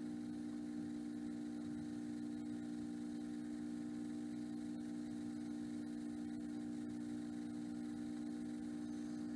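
Steady low electrical hum, several fixed tones together, with no distinct stirring or ladle sounds standing out.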